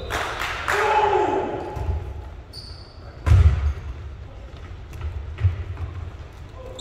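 Basketball game play: the ball bouncing on the court with dull thuds, the loudest a little over three seconds in, short high sneaker squeaks, and players' voices calling out.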